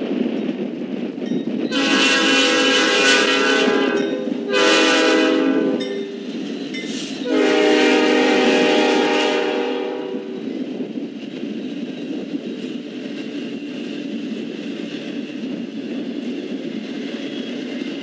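Norfolk Southern locomotive's Nathan P5 five-chime horn blowing long, short, long for the grade crossing. Then the steady rumble and clatter of the diesel locomotives and intermodal container well cars rolling past.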